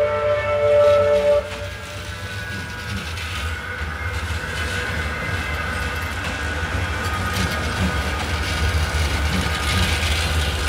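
Tram horn sounding a steady two-note tone that cuts off about a second and a half in, then a coupled pair of Manchester Metrolink M5000 trams pulling away past, with a steady low rumble and a faint electric motor whine.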